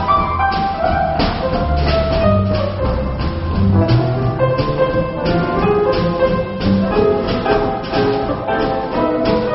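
Live jazz quartet of piano, drum kit and upright bass playing a swinging tune. The drums keep a steady beat of about two strokes a second under a melody line and walking bass notes.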